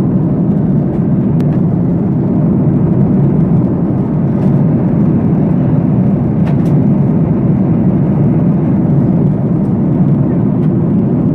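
Airliner cabin noise in flight: a loud, steady, even rumble, with a few faint clicks.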